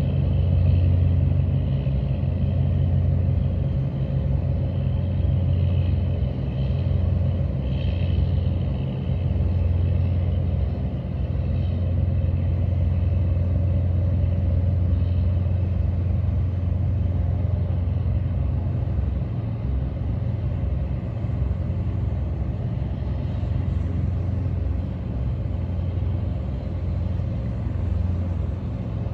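Diesel engines of squid-fishing boats heading out to sea, a steady low rumble.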